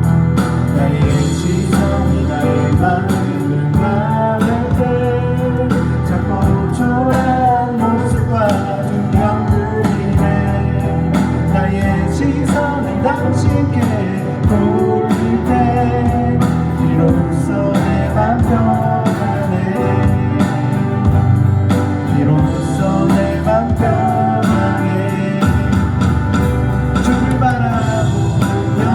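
Live band playing a contemporary worship song, with a sung melody over instrumental accompaniment.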